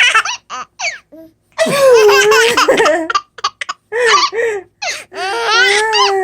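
A six-month-old baby laughing in repeated bursts, with a louder, longer burst about one and a half seconds in and another near the end. The laughter is in response to an adult's sneezing.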